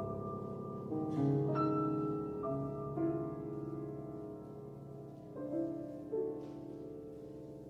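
Solo piano playing a slow, quiet contemporary classical passage: chords struck every second or two and left to ring and fade, growing softer near the end.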